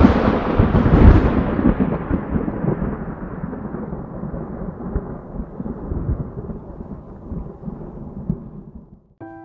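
Deep cinematic boom from a logo-reveal sound effect, hitting again about a second in, then a long rumble that slowly fades away.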